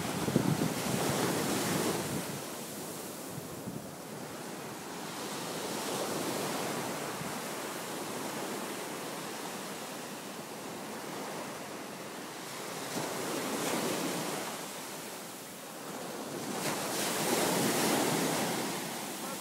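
Ocean surf washing onto the beach, swelling and fading every few seconds, with wind buffeting the microphone. The loudest swells come near the start and near the end.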